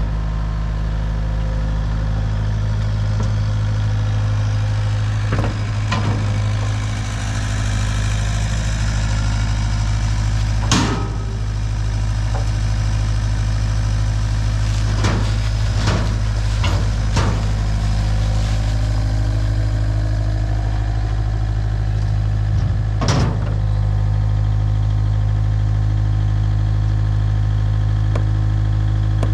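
An engine idling steadily, with a few sharp knocks or clanks scattered over it.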